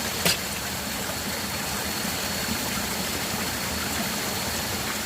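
Small waterfall: a steady rush of falling water. One sharp click about a quarter second in.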